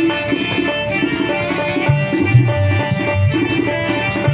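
Instrumental interlude of a live bhajan: tabla keeping a steady rhythm under a repeating melody on harmonium and electronic keyboard, with no singing.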